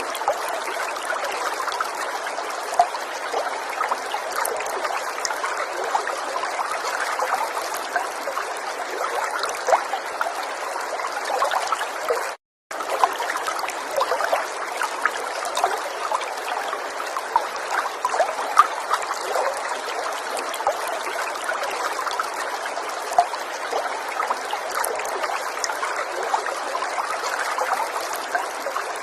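River water flowing and trickling steadily, with many small splashes. The sound cuts out completely for a split second about twelve seconds in.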